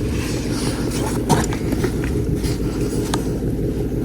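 A small boat's outboard motor running steadily under way, a dense low rumble with a few faint clicks over it.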